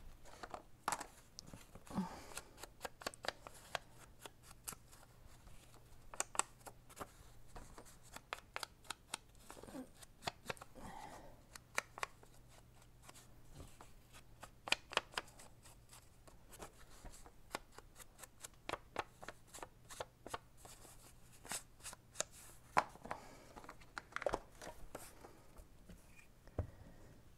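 Clusters of light, quick taps and paper rustling from hands at a craft table: a wooden-handled rubber stamp dabbed on an ink pad and pressed onto paper, and near the end a glue stick rubbed over paper. A faint steady low hum lies underneath.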